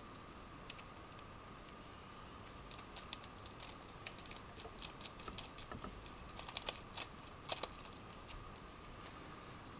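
Faint metallic clicks and ticks of wing nuts being turned by hand onto the bolts of a steel camera mounting bracket. The clicks come irregularly from about three seconds in and cluster most thickly a little past halfway.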